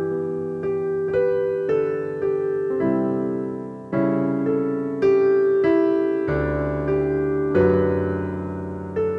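Digital keyboard played with a piano voice: slow chords struck one after another, each left to ring and fade, the loudest about three-quarters of the way through.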